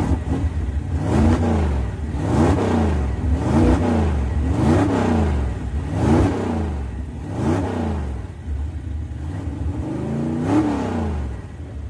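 A vehicle engine revved again and again over a steady low running rumble: about eight rises and falls in pitch, roughly one every second and a half.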